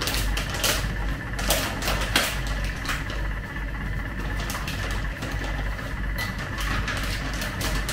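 Crinkling of a tea packet and loose dried fruit tea being shaken into a stainless-steel teapot: a run of rustles and light clicks, thickest in the first three seconds, over a steady low hum.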